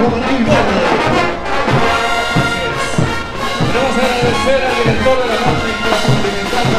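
Bolivian brass band playing a morenada: a brass melody of trumpets and lower brass over a steady, heavy beat of bass drum and snare drums.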